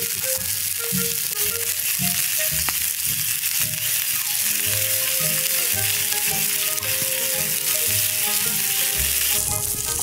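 Pork belly slices sizzling steadily as they grill over a campfire, the hiss growing brighter near the end. Soft background music with a light beat plays underneath.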